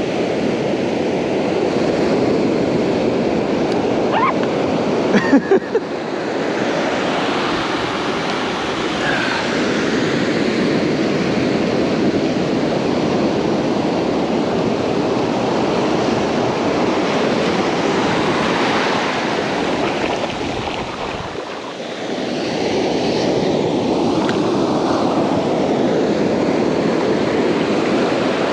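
Ocean surf breaking and washing up a sand beach, a steady rush that eases briefly about three-quarters of the way through and then builds again. A few short sharp knocks sound about five seconds in.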